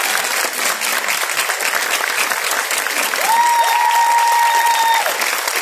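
Audience applauding steadily as the dance troupe takes its bow. Two long, high held cheers rise over the clapping about three seconds in.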